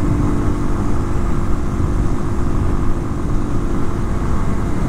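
2019 Kawasaki KLX250's fuel-injected single-cylinder four-stroke engine running at a steady highway cruise, heard from on the bike with heavy wind noise over the microphone.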